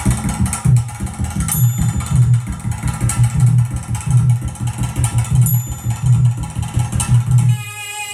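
A song played back through a power amplifier with a Pro Logic board under test, with a heavy, pulsing bass beat. About seven and a half seconds in, the bass drops out and only higher melody notes continue.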